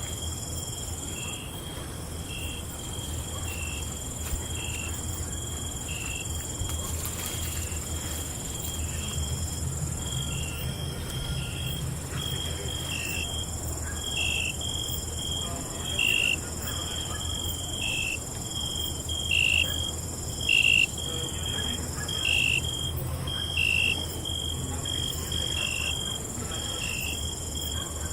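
Crickets chirping at night: a steady high trill with short, repeated chirps about once a second, some louder ones in the second half. A low steady rumble runs underneath.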